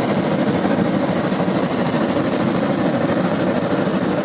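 Helicopter engine and rotor noise during flight, a steady, unbroken drone with a constant hum.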